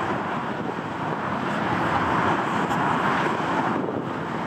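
Jet engine noise from a Boeing 747 moving along the runway: a steady rushing roar that swells a little after the first second or so.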